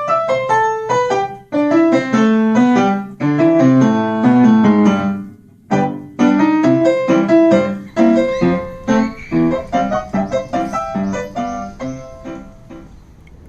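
Piano music: quick runs and chords of struck notes, thinning out and fading over the last few seconds.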